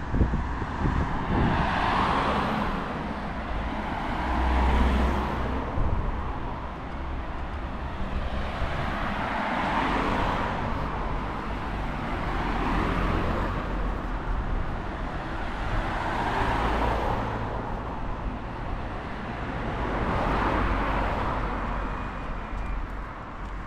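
Road traffic: cars passing one after another, each swelling and fading over a few seconds, about six in all, over a steady low rumble.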